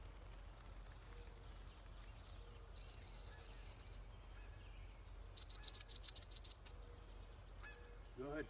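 Dog training whistle: one long steady blast, then about a second and a half later a quick series of about ten short, louder toots at the same high pitch. A goose-like honk starts right at the end.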